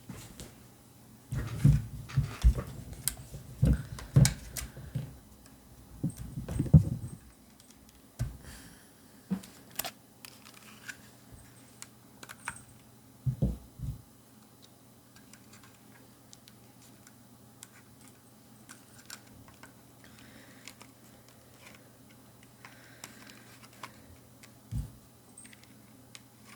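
Small clicks, taps and rattles of a handheld metal detector being handled while its battery is changed: a dense run of clicks over the first several seconds, then scattered single clicks.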